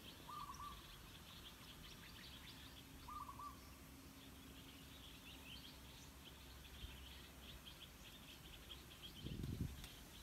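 Faint outdoor ambience of small birds chirping: rapid high chirps throughout, with two short wavering lower calls in the first few seconds. A brief low thump comes near the end.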